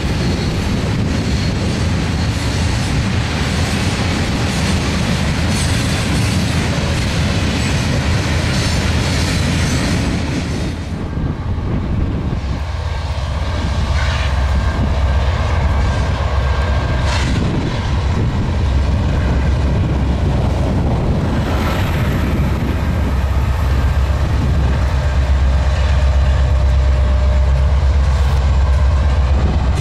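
Freight cars rolling past with a steady clatter of wheels on the rails. About a third of the way in this gives way to an oncoming freight led by diesel locomotives, a deep engine rumble that grows louder toward the end.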